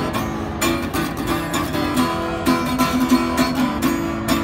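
Acoustic guitar strummed in a steady rhythm, playing a song live.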